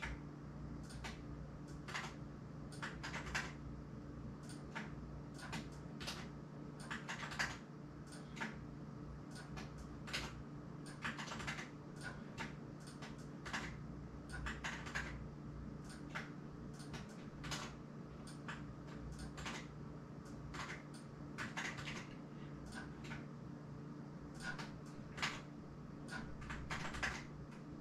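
Irregular light clicks and taps, several a second, over a steady low hum.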